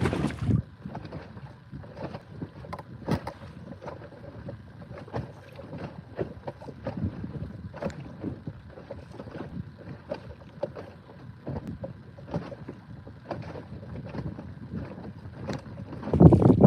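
Water lapping and slapping against a fishing kayak's hull at sea, with small irregular knocks. Wind buffets the microphone, rising to a loud gust near the end.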